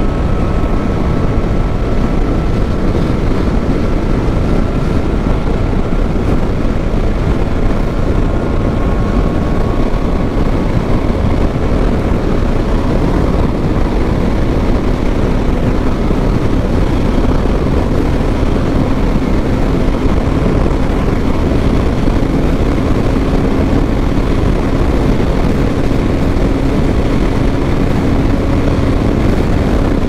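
KTM Duke 250's single-cylinder engine running at a steady highway cruise, under heavy wind rush on the microphone. The engine's faint tone holds nearly level, shifting only slightly in pitch.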